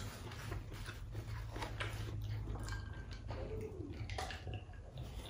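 Quiet eating sounds: soft chewing and small mouth clicks, then swallows of water from a drinking glass about three to four seconds in, over a low steady hum.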